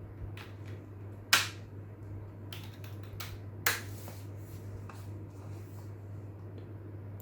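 Scattered clicks of a computer keyboard and mouse in use, two of them louder, about a second and a half in and near four seconds in, over a steady low hum.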